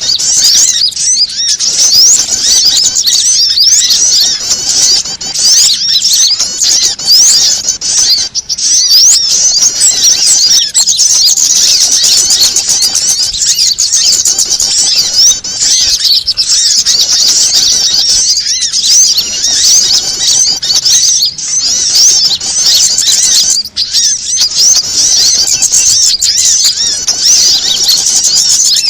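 Bird-lure (pikat) recording of many small birds calling excitedly at once: a dense, unbroken tangle of rapid high-pitched chirps and trills. It swells and dips about every two and a half seconds, as a looped track does.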